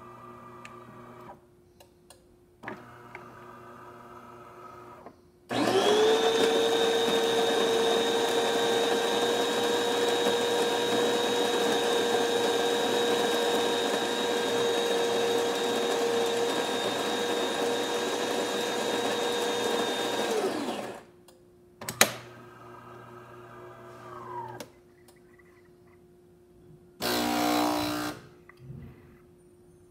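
DeLonghi Magnifica bean-to-cup espresso machine starting a shot. Its built-in grinder starts up with a rising whine, then whirs loudly and steadily for about fifteen seconds before stopping. A click and quieter machine sounds follow, then a short buzz near the end.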